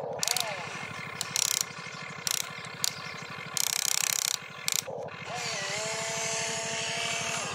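RC excavator's small electric gear motors running as the boom and bucket move, with a fast steady buzz and several short bursts of ratcheting gear clatter. About five seconds in, a motor whine glides up and then holds steady.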